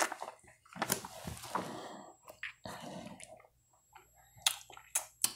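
Close-up mouth sounds of a Charms Blow Pop lollipop being sucked: wet sucking and smacking in short stretches, with a few sharp clicks near the end.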